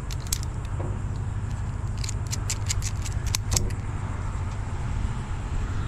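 Ratchet strap being cranked tight on a truck load: a couple of sharp metal clicks near the start, then a quick run of about eight clicks around the middle, over a steady low rumble.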